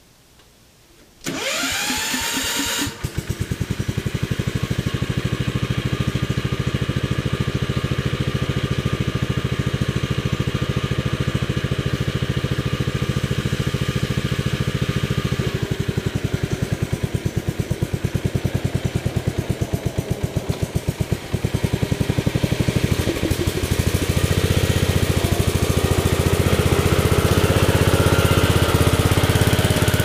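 Economy Power King garden tractor engine started: a brief rising starter whir about a second in, then the engine catches and runs with a steady, even firing beat. It gets louder near the end as the tractor drives off under load, towing a DR towable backhoe.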